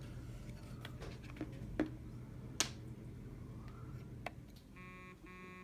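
Small clicks and taps of a USB cable being handled and plugged into a homemade charger's USB port inside a metal tin, over a low steady hum. Near the end, two short steady tones sound one after the other.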